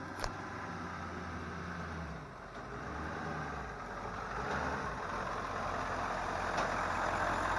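Ford 7.3-litre V8 turbo-diesel truck engine idling, its sound growing gradually louder over the second half.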